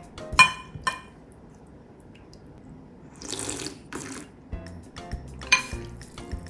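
Kitchen sounds over soft background music: a few sharp, ringing clinks of cookware and a short rush of water from a tap about three seconds in.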